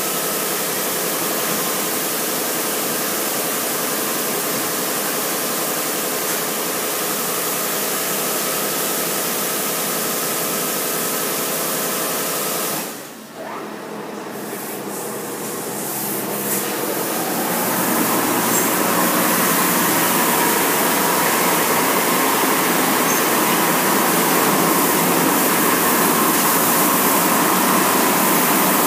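Mark VII rollover car wash spraying water over the car, with its pump and motors running: a loud, steady rushing hiss. It drops away briefly about thirteen seconds in, then builds back louder with a steady whine.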